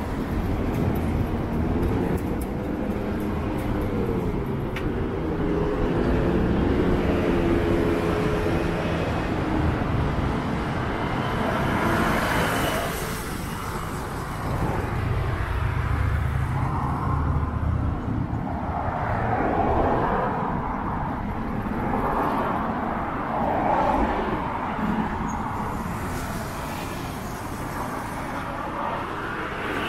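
Road traffic on a city street: cars and other motor vehicles driving past under a steady rumble. Over the first ten seconds one engine's note wavers up and down in pitch, and a vehicle swishes past near the middle.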